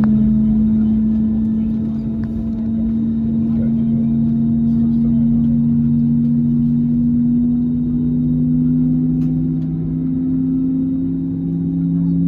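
Airbus A320neo jet engines heard inside the cabin: a steady hum of two tones that climb slowly in pitch as the engines spool up, over a low rumble.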